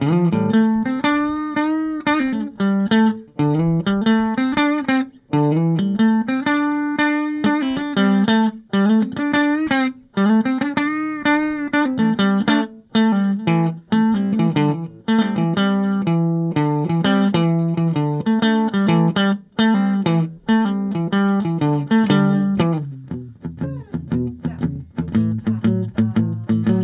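Instrumental guitar break with no singing: a melody of notes that bend up and down in pitch, turning into quicker picked notes in the second half.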